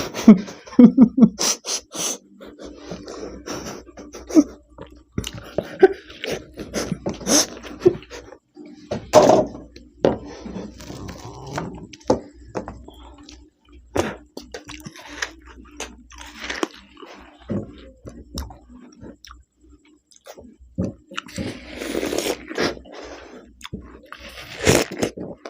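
People biting and chewing watermelon, wet crunchy bites and mouth noises coming in irregular bursts, over a faint steady low hum.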